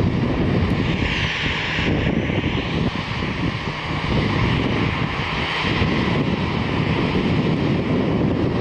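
Jet airliner engines running, a steady rumble and hiss with a faint high whine.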